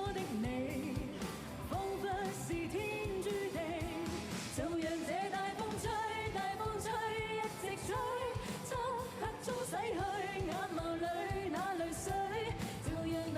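Asian pop song performed live, with a female lead vocal over a band and a steady drum beat.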